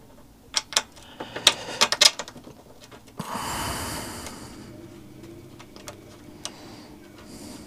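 Sharp metallic clicks and clinks, clustered in the first two seconds, as a hand tool and bolt are worked to fit a Honda CB200's side stand to the frame. A softer hissing noise follows about three seconds in and lasts a second and a half.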